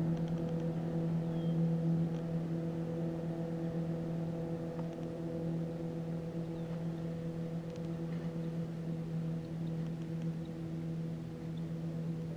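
A steady low hum with a stack of even overtones, unchanging in pitch throughout.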